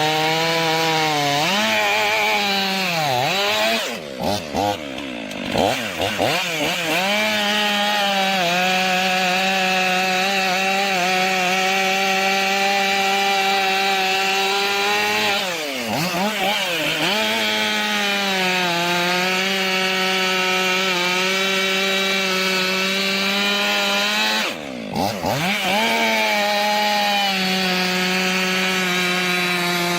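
STIHL two-stroke chainsaw running at high revs as it cuts through a log. Its engine note holds steady, then dips and climbs back several times near the start, again about midway, and once more about three-quarters through.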